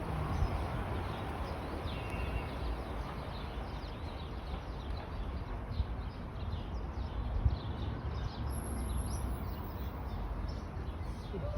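Birds chirping in many short, faint, high calls over a steady low outdoor rumble.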